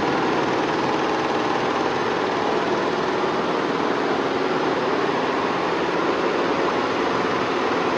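Several computerized multi-head embroidery machines stitching at once, a steady mechanical noise with no let-up.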